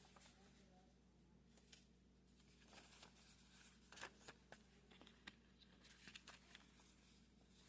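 Faint scattered clicks and light rustles of a smartphone's retail box and packaging being handled during unboxing.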